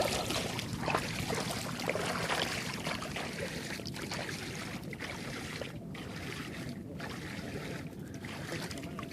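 Steady rush of fast-flowing river water, swollen after a storm.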